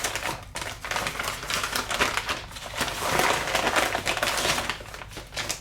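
Crinkling of plastic packaging with a quick run of small clicks and rattles as packaged small RC parts are handled.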